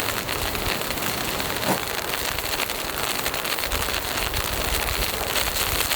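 Steady hiss of a snowstorm: wind and falling precipitation, thick with many fine ticks of flakes or pellets striking.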